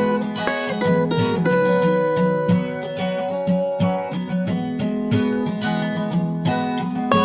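Background music played on acoustic guitar: plucked and strummed notes in a steady rhythm.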